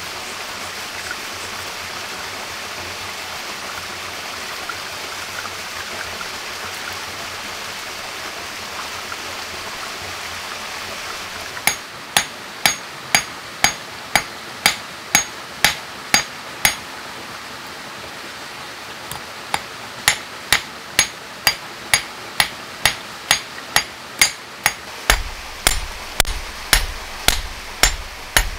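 A stream running steadily. About twelve seconds in, a steel wire laid on a flat stone is struck again and again, giving sharp, ringing metallic clinks about two a second, with a short pause after about five seconds before the strikes resume.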